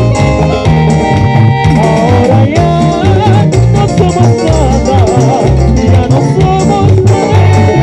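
Latin dance band music, salsa-like, with a pulsing bass and a shaker. A singing voice comes in about two and a half seconds in.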